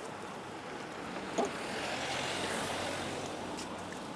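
Street traffic noise, with a car passing by that swells and fades in the middle. A brief knock sounds about a second and a half in.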